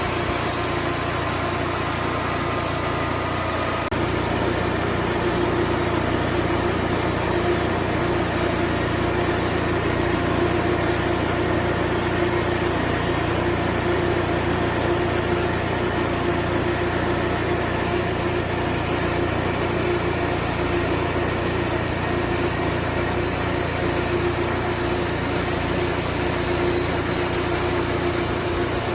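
A sawmill's engine running steadily. About four seconds in, the sound steps up a little louder and a steady tone comes in.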